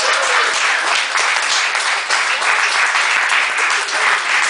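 A group of people applauding steadily.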